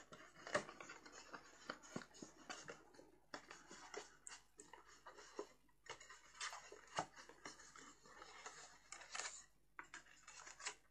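Faint rustling of cardstock with scattered light taps and clicks as it is handled and its flaps are folded in along the score lines.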